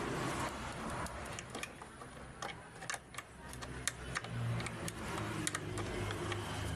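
Irregular sharp clicks and light knocks, a dozen or more, over a low steady hum.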